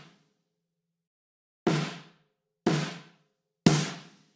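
Sampled acoustic snare drum from MDrummer's virtual kit, struck three single hits about a second apart, each ringing out briefly, beginning after a short pause.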